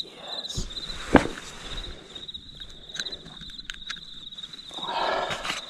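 Crickets chirping in a steady, high, pulsing trill, over close handling noises: a sharp knock about a second in and a burst of rustling near the end.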